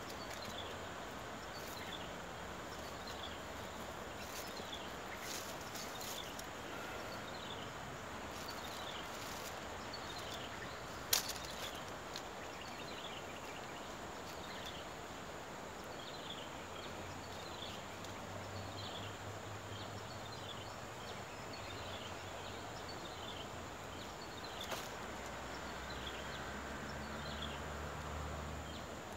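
Steady outdoor background hiss with many short, high chirps that fall in pitch, a few each second, from a small bird or insect. One sharp click about eleven seconds in, a softer one later, and a faint low hum that comes and goes in the second half.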